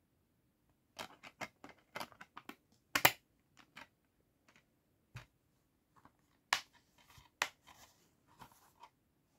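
Plastic DVD case being handled: a run of sharp clicks and snaps as the disc is pressed onto the case's centre hub and the case is moved. The clicks start about a second in, with the loudest snaps about three seconds in and again after six seconds.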